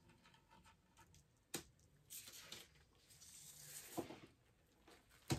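Faint handling sounds of a thin metal chain being drawn across wet resin and off the board: a light tick, a soft scraping rustle lasting a couple of seconds, then a sharp knock near the end, the loudest sound.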